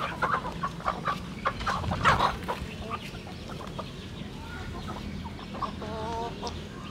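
A flock of chickens clucking as they feed. A quick run of short clucks fills the first couple of seconds, and one longer, drawn-out call comes near the end.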